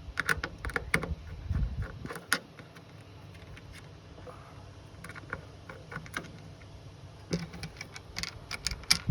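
Irregular small clicks and taps of hand tools working on the plastic and metal hinge fittings of a fridge lid as they are unscrewed and taken off.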